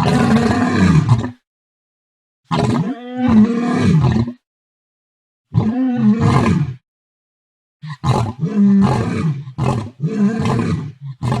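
Lion roaring: three separate roars of one to two seconds each, their pitch sliding down, with abrupt silences between. From about eight seconds in, a run of shorter roars follows in quick succession.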